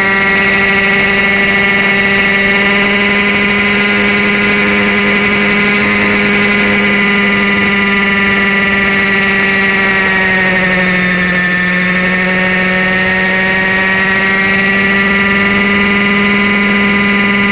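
Airstar International Mongoose RC helicopter running steadily in flight, a constant pitched drone that sags slightly in pitch about ten seconds in and then comes back up.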